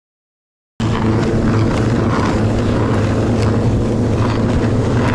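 Snowmobile engine running steadily under way over snow, with a low hum, cutting in after a moment of silence at the start.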